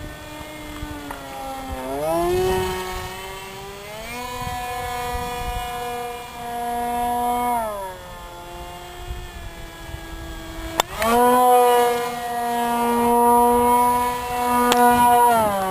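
Homemade RC model airplane's motor and propeller running in flight, a steady buzzing drone. Its pitch and loudness rise about two seconds in, drop back near eight seconds, rise again around eleven seconds and fall near the end, as the throttle is opened and closed.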